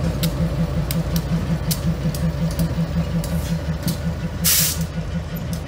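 Diesel freight locomotives passing close by, their engines giving a steady pulsing throb with scattered sharp clicks from the wheels. About four and a half seconds in, a short loud burst of air hiss.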